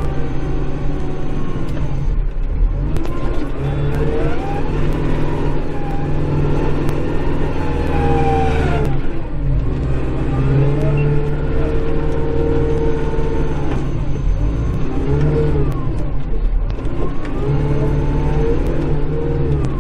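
Kubota Grand L5740 tractor's diesel engine running under load, heard from inside the cab, with a drivetrain whine that rises and falls every few seconds as the tractor drives forward and back pushing snow with the plow blade.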